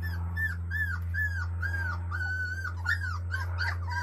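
Four-week-old Labrador retriever puppies whimpering: a run of short high whines that rise and fall, about two a second, with one longer held whine about halfway and quicker overlapping whimpers near the end. A steady low hum runs underneath.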